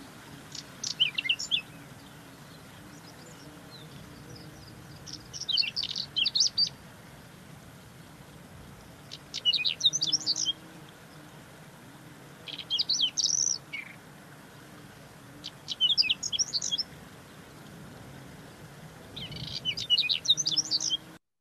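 Whinchat singing: six short phrases of quick, high notes, each about a second long and a few seconds apart, over a faint steady background hum.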